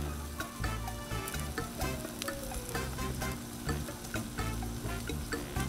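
Thin-sliced ribeye and onions sizzling on a hot Blackstone flat-top griddle under melted provolone: a steady frying hiss with many small crackles and pops.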